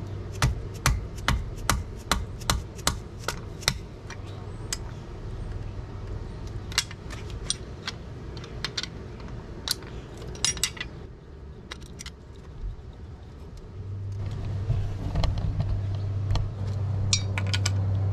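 Ratcheting wrench clicking in quick strokes, several a second for the first four seconds and then in scattered clicks, as the bolts holding an outboard motor's lower unit are backed out. A low steady hum comes in about fourteen seconds in.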